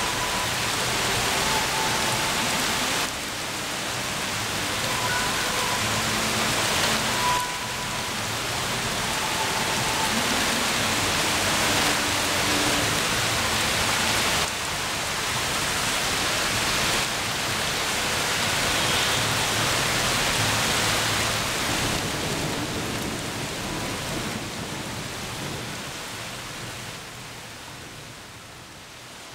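Heavy rain falling steadily, a dense hiss. The loudness steps suddenly up or down a few times, then fades down near the end.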